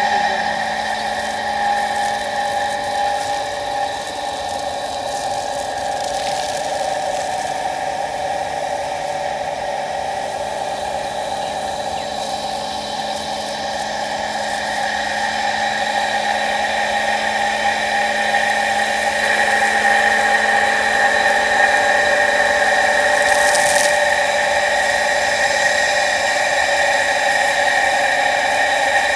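Irrigation water pump's motor running steadily with an even, high whine, a little louder in the second half.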